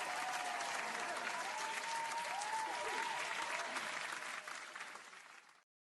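Crowd applauding, with a few whistles over the clapping; it starts abruptly, tails off near the end and cuts off suddenly.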